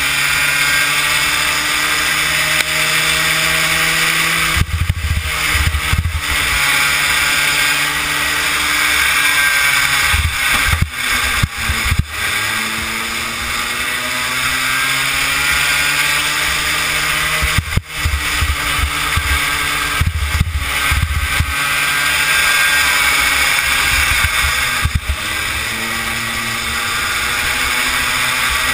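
Kid kart's small engine running hard, its pitch climbing for several seconds at a time and dropping back several times, over steady wind hiss on the onboard microphone, with a few sharp knocks.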